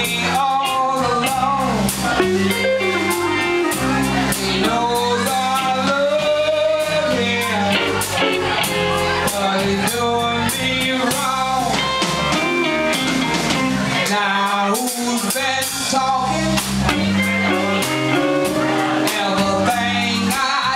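Live blues band playing: a woman singing lead over electric guitars, electric bass and drum kit.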